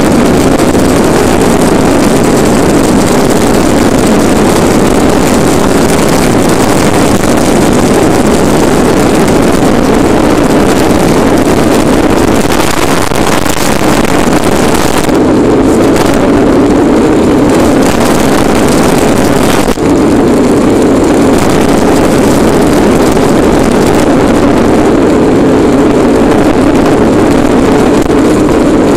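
Bobby-Car's wheels rolling fast down an asphalt road, a loud, steady rumbling noise mixed with wind on the microphone.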